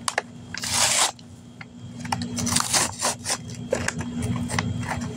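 PEZ dispenser packaging being torn and peeled open by hand: a few short rips with rustling and small clicks between them, the loudest rip about a second in.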